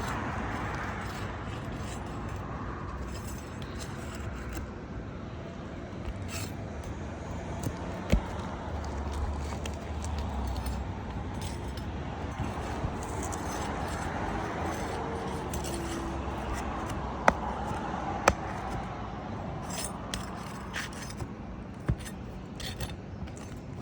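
Pry bar and nails scraping and clicking against asphalt shingles as roofing nails are worked loose from under the shingle tabs, with a few sharp metallic clicks over a steady background hiss.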